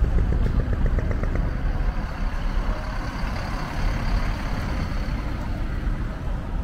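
Heavy multi-axle truck driving slowly past, its diesel engine giving a steady low rumble, with a faint high whine in the middle.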